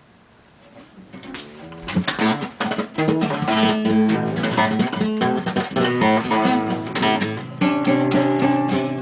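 Five-string nylon-string acoustic guitar improvising in a tuning of A's, or thereabouts. Quiet plucked notes come in about a second in and build into fuller, ringing playing.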